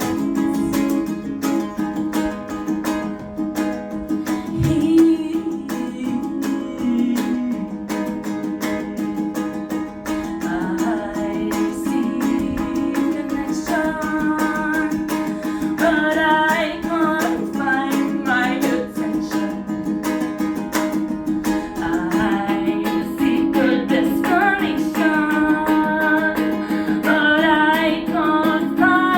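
Ukulele strummed steadily in an original acoustic song, with a woman's singing voice over it, strongest in the second half.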